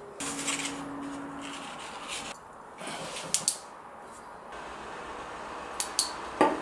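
A short steady hum in the first second and a half, then several sharp clicks in two pairs and a louder click near the end, like small hard objects being handled.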